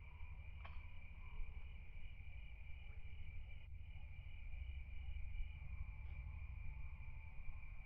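Insects chirring steadily in one high, slightly pulsing note, over a constant low rumble, with a few faint ticks.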